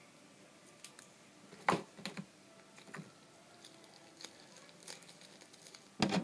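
Small plastic packet crinkling and rustling as it is handled, with scattered small clicks and a couple of louder rustles about two seconds in. A sharp knock on the table near the end.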